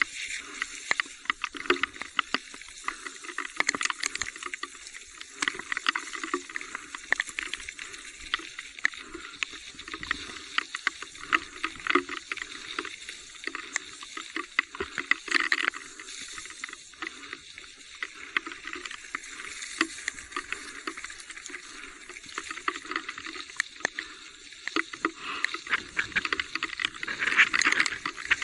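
Heavy rain falling, a steady hiss with many sharp ticks of drops striking close by.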